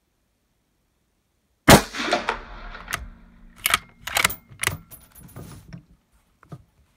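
A single .308 Win. rifle shot from a Sauer 101 bolt-action rifle about two seconds in, echoing in an indoor range, followed by a series of sharp metallic clicks and clacks as the bolt is worked to chamber the next round.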